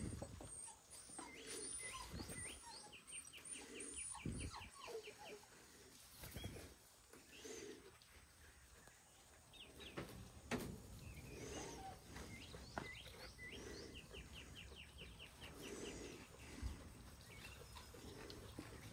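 Faint birdsong: a songbird sings a fast trill of about ten quick high notes twice, about ten seconds apart, with a few other chirps between. Soft scuffs and knocks sound close to the microphone.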